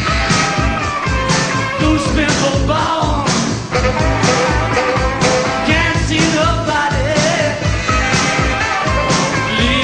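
Rock band playing live: a man's lead vocal sung over electric guitars, bass and drums with a steady beat.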